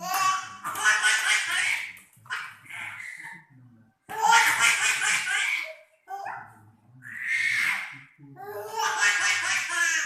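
A young child laughing hard in several long bursts, a few seconds apart.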